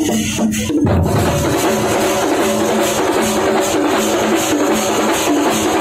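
Thampola ensemble of Kerala festival drums, many drummers playing together. A spaced, regular beat breaks about a second in into a loud, dense, driving roll that keeps going.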